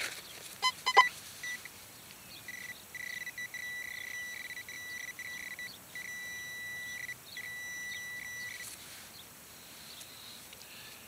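Handheld metal-detecting pinpointer sounding a steady high-pitched tone for about six seconds, broken by a few short gaps, as it is held over a buried target in the dug hole: here a bottle cap. A few short beeps come about a second in.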